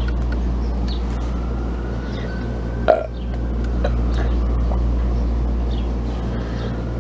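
A steady low hum throughout, and one short throaty sound from a person about three seconds in, like a burp.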